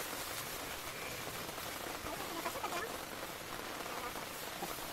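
Steady rain falling on a tarpaulin awning, an even hiss with no let-up.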